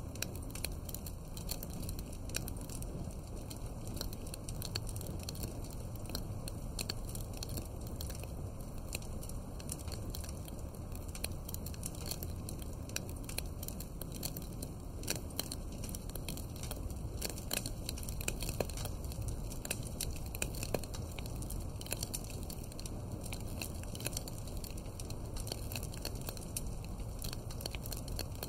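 Wood fire crackling: a steady stream of small pops and snaps over a low, even rush of flames, with a few louder pops toward the middle.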